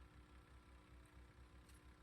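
Near silence, with a faint low throb pulsing about six times a second under a faint steady hum.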